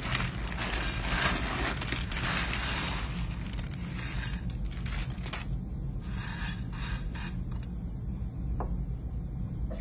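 Plastic bag of dry, crispy chow mein noodles crinkling as the noodles pour and rattle into a glass baking dish. Densest rustling in the first few seconds, then scattered shorter rustles, with a steady low hum underneath.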